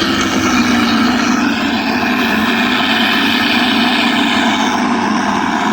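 Simulated piston-engine rumble from a G.T. Power sound module's speaker on an electric FMS P-51D Mustang RC model, running steadily and loud, mixed with the model's propeller noise.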